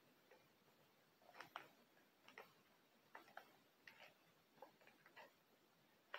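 Faint, irregular crinkles and clicks of a Pez dispenser's clear plastic packaging being torn open and handled.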